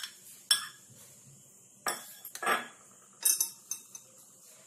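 A spoon clinking and scraping against a bowl while thick fresh cream is scooped in: about five short, sharp knocks at irregular intervals.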